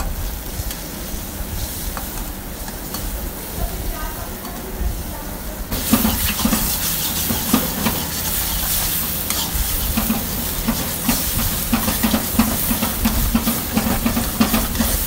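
Chopped tomatoes and beef kidney pieces sizzling in oil in a black wok, stirred and scraped with a metal spatula as the tomatoes cook down. About six seconds in, the sizzling suddenly gets much louder, with rapid scraping strokes of the spatula against the pan.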